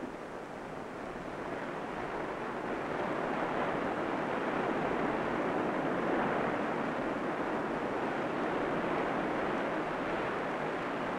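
Atlantic surf washing and breaking over rocks, a steady rush of churning water that swells louder about two seconds in.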